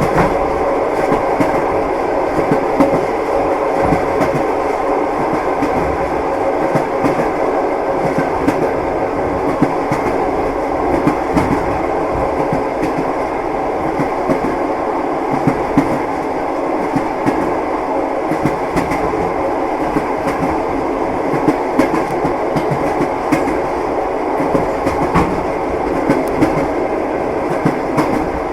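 A train running steadily, its wheels knocking over the rail joints in frequent short clicks over a continuous rumble and a steady hum.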